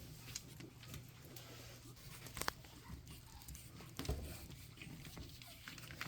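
Pug puppies shuffling about at close range: faint scattered rustling and light taps, with a sharper click about two and a half seconds in and a soft thump about four seconds in, over a low steady hum.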